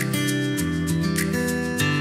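Background music: strummed acoustic guitar playing chords, changing chord about half a second in and again near the end.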